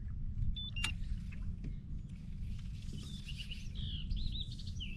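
Wild birds chirping several times in the second half, over a steady low rumble. A single sharp click sounds near the start.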